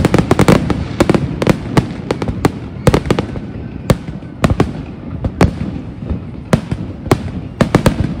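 Aerial fireworks display: a rapid run of sharp bangs and crackles at first, then single bangs and short clusters at irregular gaps of roughly half a second to a second.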